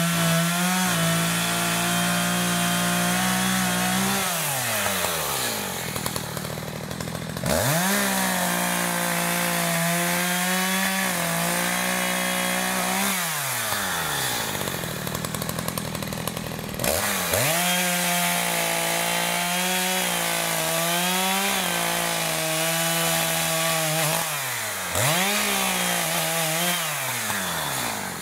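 ECHO CS-590 Timber Wolf two-stroke chainsaw running at full throttle while cutting fallen logs. Several times the engine lets off with a falling pitch and then revs straight back up into the cut.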